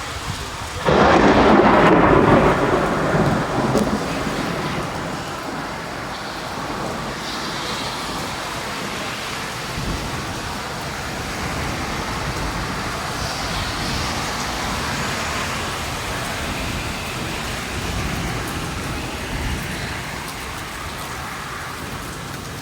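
A thunderclap breaks suddenly about a second in and rumbles off over about three seconds, followed by steady heavy rain falling on hard surfaces.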